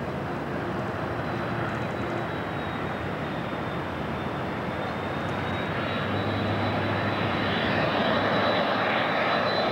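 McDonnell Douglas MD-80-series jetliner on landing approach, its tail-mounted Pratt & Whitney JT8D turbofans making a steady rushing jet noise that grows louder as the plane comes closer.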